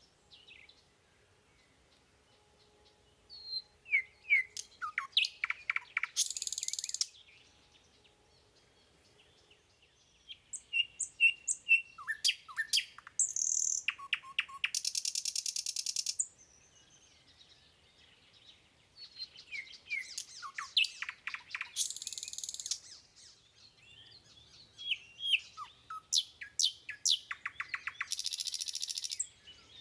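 A songbird singing in four bouts a few seconds apart. Each bout is a run of quick descending whistles and clicks that ends in a harsh buzzing trill about a second long.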